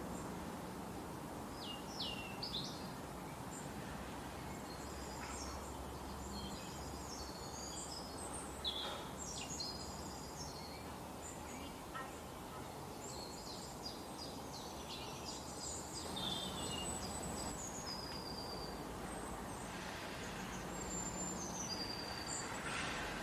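Several small birds chirping and trilling in quick, high-pitched calls over a steady background hiss of forest ambience.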